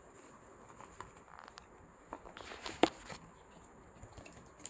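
Cardboard carton being handled as a jar is pulled out of it: light scraping and rustling with scattered small clicks, and one sharp knock just before three seconds in.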